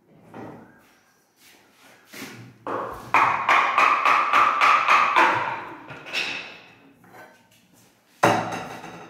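Kitchen wall-cabinet door handled and swung open: a few light knocks, then a creak lasting about two seconds as the door opens. A sharp knock near the end.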